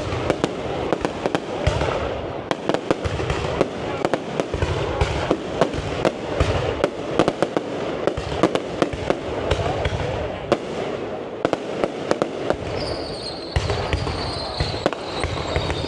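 Aerial fireworks display: many sharp bangs and crackles in quick, uneven succession. A high, slightly falling whistle joins near the end.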